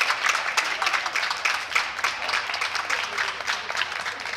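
Audience applauding, many hands clapping at once in a dense, continuous run.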